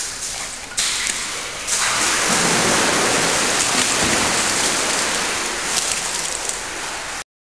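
Loud, steady rushing noise like heavy rain, stepping up in loudness over the first two seconds, then cutting off suddenly near the end.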